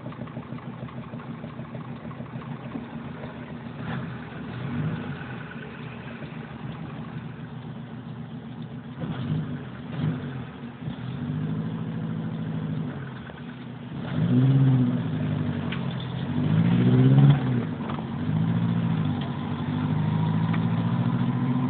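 Car engine heard from inside the cabin while driving slowly, a steady hum at first; in the second half its pitch rises and falls several times as the car accelerates and eases off.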